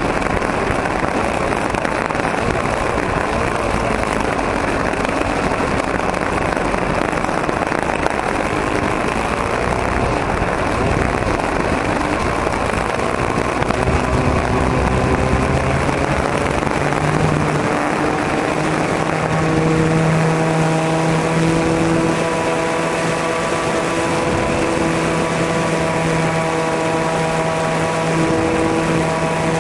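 O.S. .40 glow engine of an RC model plane running hard for takeoff and climb, heard from a camera mounted on the airframe. For the first half it is a loud, rough rumble; from about two-thirds of the way in it settles into a steady buzz with a clear pitch.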